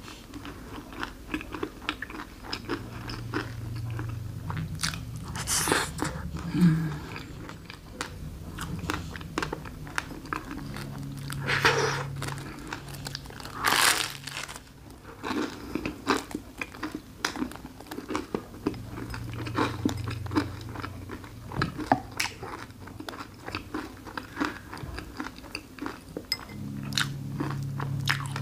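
Close-up biting and chewing of a waffle topped with whipped cream and raspberries: crisp crunching and mouth sounds, with louder bites about six, twelve and fourteen seconds in.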